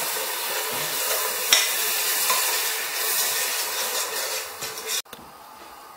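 Sugar, melted butter and a splash of water sizzling in a stainless steel pot on full heat while a metal slotted spatula stirs and scrapes the bottom, the sugar dissolving. The spatula knocks once about a second and a half in, and the sound drops suddenly to a faint hiss near the end.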